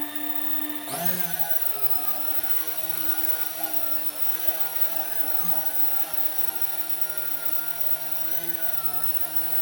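Electric motor and propeller of a radio-controlled model plane running with a steady whine. The pitch jumps up about a second in as the throttle opens, then holds with small wavers.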